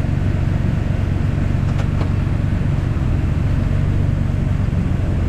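Tractor engine running steadily at low throttle, driving the grain cart's unloading auger through the PTO as corn starts to flow.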